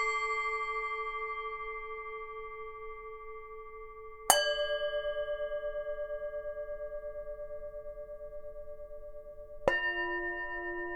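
Tibetan singing bowls struck and left to ring, each tone wavering in a slow pulse as it fades. A ringing tone carries in from the start, a second, higher strike comes about four seconds in, and a third, lower one near the end.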